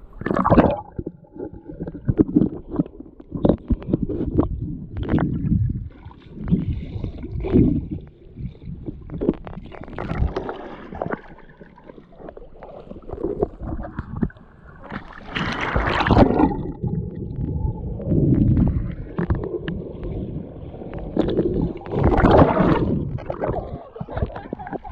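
River water sloshing and gurgling close around the camera, muffled and uneven, with louder splashes now and then, the biggest about two-thirds of the way through and again near the end.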